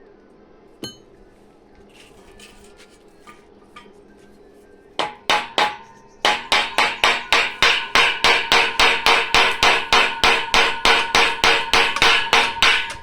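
Hammer striking metal with a ringing clang: three blows, then after a short pause a fast, steady run of about three to four blows a second.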